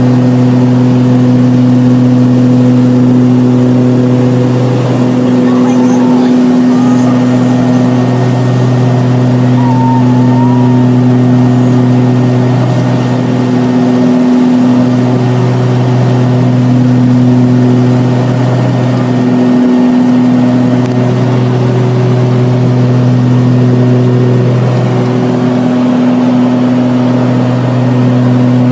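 Steady drone of the Beech Duke's twin piston engines and propellers heard inside the cockpit in cruise. It swells and fades in a slow beat every six to eight seconds as the two propellers drift in and out of sync.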